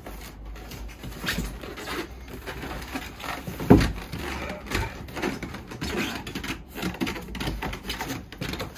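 A large cardboard speaker box being rolled over and handled on the floor: a run of cardboard scrapes, rubs and knocks, with one heavy thump a little under four seconds in.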